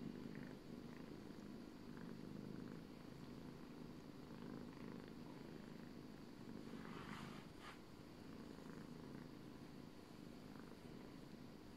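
Faint, steady cat purring, with a couple of soft clicks about seven seconds in.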